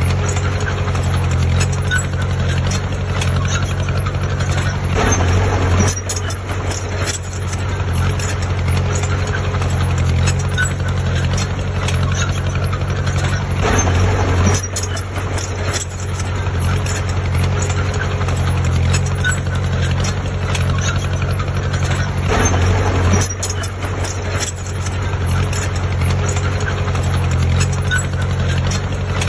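Diesel engine of a heavy earthmoving machine running steadily, with a constant low hum and a busy rattling noise over it.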